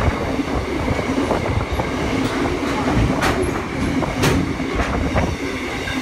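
Container freight train's wagons rolling past: a steady rumble and hum of steel wheels on rail, broken by sharp wheel clacks, the loudest about three and four seconds in.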